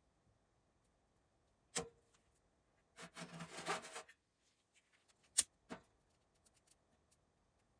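A sharp click with a brief metallic ring, then about a second of crackling and rustling as dry leaves and twigs catch fire in a small stainless-steel tent wood stove, followed by a few scattered crackles and ticks.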